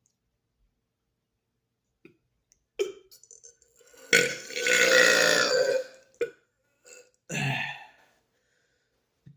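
A man's deliberate loud belch lasting about two seconds, starting about four seconds in, then a second, shorter belch near the end.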